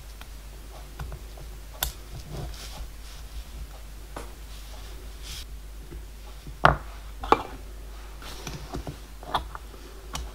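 A few small clicks and taps as tiny metal bearing blocks and a steel big-end strap are handled and pushed together by hand, the sharpest two about two thirds of the way in, over a faint steady low hum.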